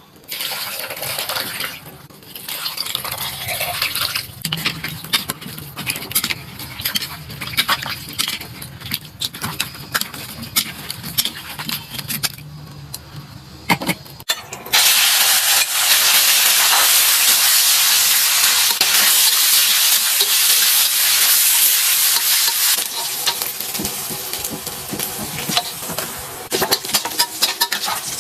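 Cooking in a wok: irregular clatter and scraping, then about halfway a loud sizzle starts suddenly as food goes into hot oil. It stays loud for several seconds, then eases a little while the food is stirred.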